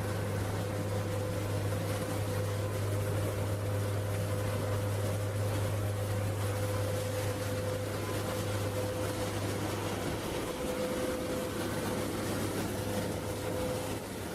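Steady low machine hum with a faint steady whine over it; the low hum eases a little about ten seconds in.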